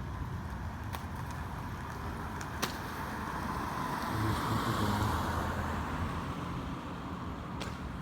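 A steady, distant mechanical rumble, the continuous noise heard from the sky. It swells for a couple of seconds about four seconds in, then eases back, with a few faint clicks along the way.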